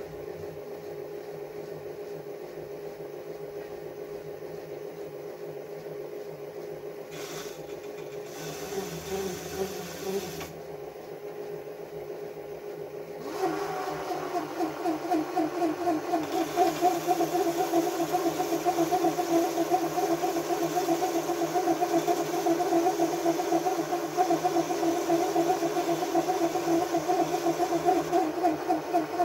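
Small benchtop metal lathe running with its chuck spinning as the tool turns a steel part, its motor and gearing humming steadily. About 13 seconds in the sound grows louder and rougher, with a fast pulsing rattle.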